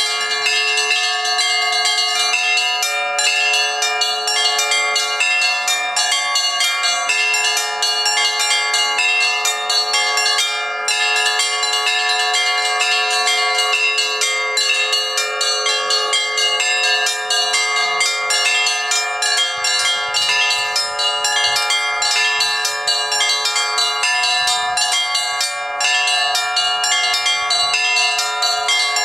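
Russian church bells rung together in a continuous peal. Bells are struck in quick succession over the steady ringing of several bells at once.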